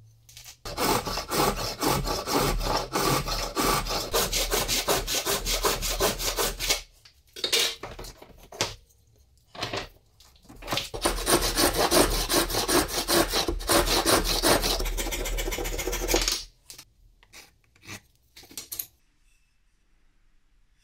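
Wooden-handled handsaw cutting through a quartersawn beech board, in two long runs of quick, even strokes with a short pause between them. A few slower, separate strokes follow, and the sawing stops a little before the end.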